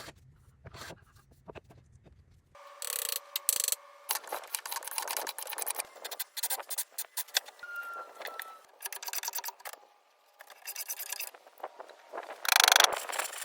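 Workshop sounds of wood and tools being handled: scraping, rubbing and clicking in quick, separate bursts. A low hum in the first couple of seconds and a louder burst near the end.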